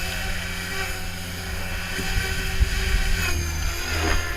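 Hurricane 425 electric RC helicopter in flight: its motor and rotors make a steady high whine over a low hum. The pitch shifts about three seconds in as the throttle or rotor load changes.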